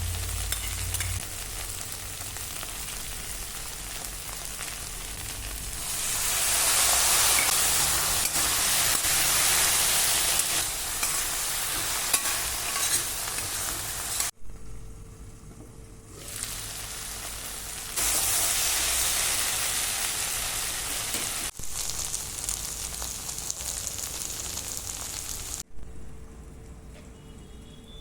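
Food sizzling as it fries in a hot pan, a steady hiss that swells louder for a few seconds at a time and breaks off abruptly a few times.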